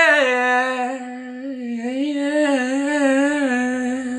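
A man singing one long held "ooh" with a wavering vibrato, dipping slightly in pitch just after it starts, as he mimics the opening of a song.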